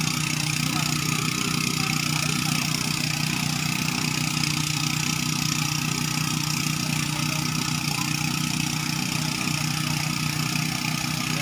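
A small engine running steadily at a constant speed, giving an even, unbroken hum.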